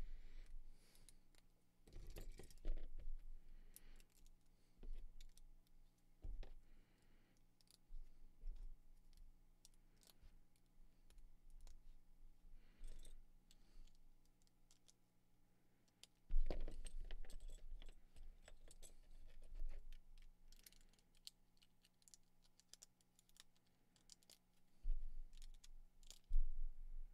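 White Lego bricks, plates and bar clips being pressed together by hand: irregular small plastic clicks and clatter. The clicking comes in busier spells about two seconds in, around sixteen seconds and near the end.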